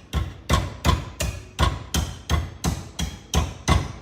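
A coconut being chopped open with a blade: a steady run of sharp strikes, about three a second.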